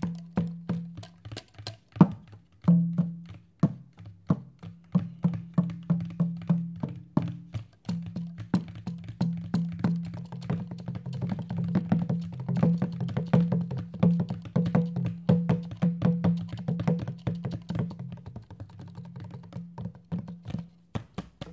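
Hand drum played with fast, dense strokes: sharp slaps over a low drum head ringing at a steady pitch, with a brief pause about eight seconds in.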